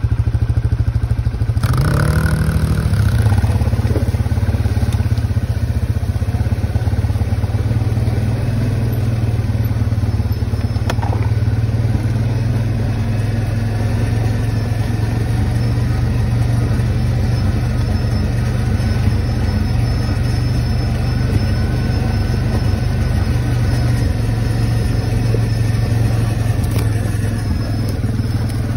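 Suzuki Vinson quad's engine running steadily under the rider while trail riding, with a brief rise in revs about two seconds in.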